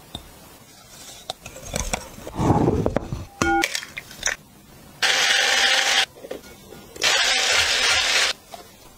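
Electric hand mixer whisking egg whites in a glass bowl, running in two bursts of about a second each, a steady motor whir with the whisk churning the foam. Before it, a few knocks and taps as an egg is cracked over the bowl.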